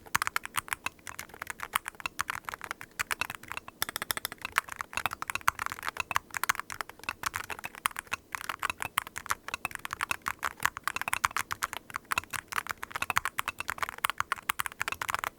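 Fast, continuous typing on a WOB Rainy75 RT keyboard with TTC King of Magnetic switches: a dense, even run of key strokes, many per second, with short lulls about four and eight seconds in.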